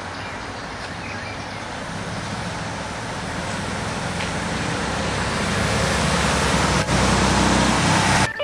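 Street traffic noise: a steady rush with a low rumble that grows louder over several seconds and cuts off suddenly near the end.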